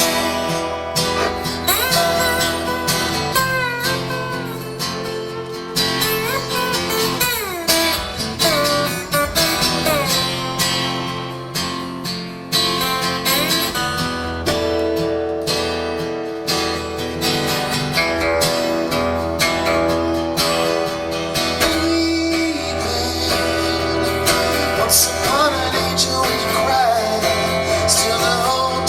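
Live band music in an instrumental passage: a guitar leads with sliding, bending notes over a steady low bass.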